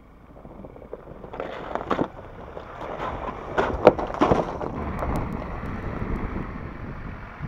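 Ford Ranger Raptor pickup approaching and driving past on a muddy dirt track: engine and tyre noise grows louder, with sharp cracks and splashes from the tyres in mud and stones as it goes by, the loudest about four seconds in. A steady rumbling noise follows.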